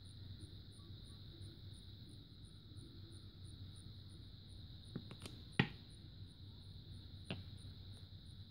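A few short, light knocks of glass paperweights being handled over a wooden bowl: three close together a little past halfway, the third the loudest, and one more near the end. Underneath is a faint, steady high-pitched tone.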